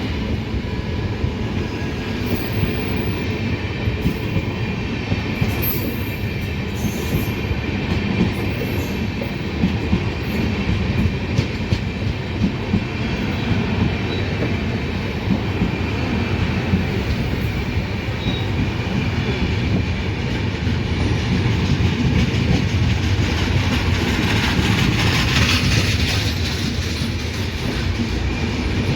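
Indian Railways train running on the track: a steady rumble with the wheels clicking over the rail joints, and a hiss that swells near the end.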